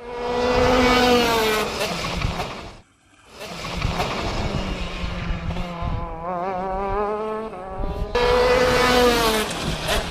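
Racing engine sound effect: a small high-revving engine passes by with falling pitch. After a short break it revs with a wavering pitch, then passes again with falling pitch near the end.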